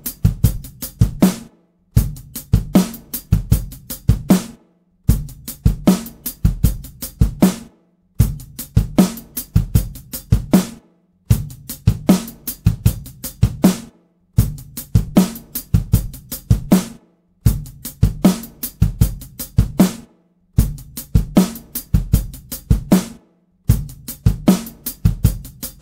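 Recorded drum-kit phrase with kick drum, snare and hi-hat, played back over and over. Each take lasts about two and a half seconds, is cut off abruptly, and a new one starts about every three seconds. Each take is heard through a different kick-drum microphone with EQ: among them an AKG C214, an AKG D12 VR and a V47F kit-built Neumann U47fet clone.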